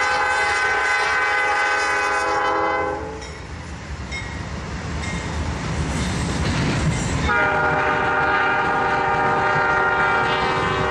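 Freight locomotive air horn sounding two long blasts. The first cuts off about three seconds in and the second starts about seven seconds in. Between them the train rumbles past, with its boxcars rolling by.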